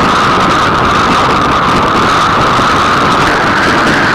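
Steady, loud road noise of a car driving on a wet road in the rain: tyre hiss on the wet surface mixed with wind and rain noise.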